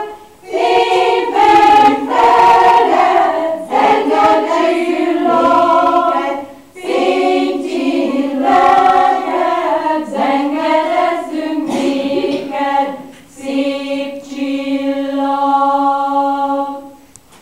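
Women's choir singing unaccompanied in several parts, in phrases broken by short breaths, closing on a long held chord that stops just before the end.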